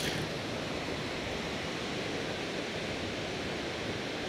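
Steady rushing of a waterfall pouring into a pool, an even hiss with no breaks.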